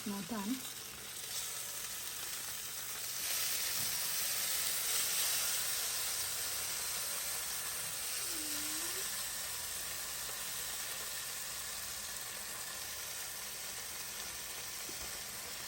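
Food sizzling in hot fat: a steady hiss that grows louder about three seconds in and then holds.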